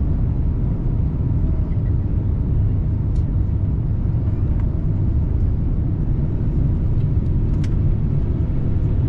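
Steady low cabin rumble of an Airbus A350-900 on final approach: its Rolls-Royce Trent XWB engines and the airflow, heard from a window seat by the wing, with a few faint clicks.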